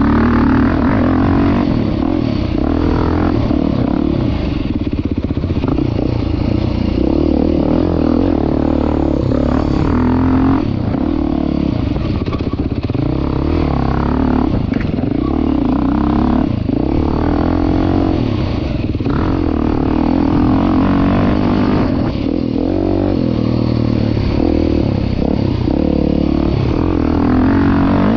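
Beta 390 Race Edition's single-cylinder four-stroke engine revving up and down as the dirt bike is ridden hard, with clatter from the bike.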